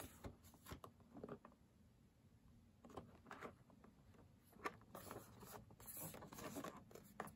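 Faint handling noise of a matte black cardboard box being turned over in the hands: scattered light taps and brief brushing of fingers on the cardboard.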